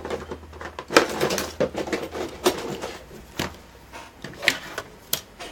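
Clicks and knocks of a laptop's case parts being handled and worked loose, about six sharp strokes spread over a few seconds.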